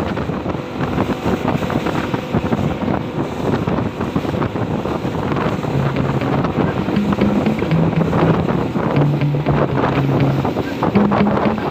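Yamaha Enduro 60 hp two-stroke outboard motor running under way, with wind buffeting the microphone. From about halfway through, music with a stepping bass line plays over it.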